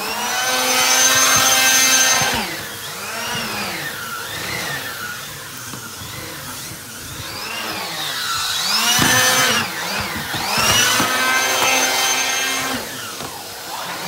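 Numatic Henry HVR200 vacuum cleaner with its 620 W single-speed motor, running an air-driven Airobrush turbo head over carpet and a rug. Its whine swings up and down in pitch as the head is pushed back and forth. It is loudest for the first two seconds and again in the second half.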